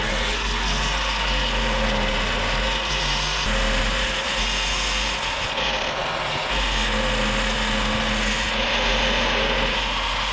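Cordless drill boring into the steel door of a gun safe: a steady, continuous grinding of the bit cutting metal as the safe is drilled open.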